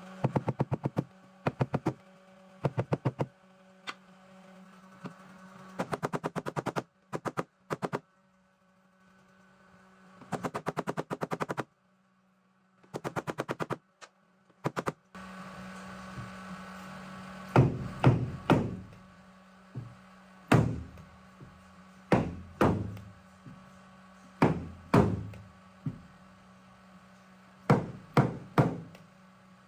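Tapping on a car's sheet-metal body panel during paintless dent repair: quick bursts of rapid light taps, then separate heavier knocks a second or two apart that ring briefly, over a steady low hum.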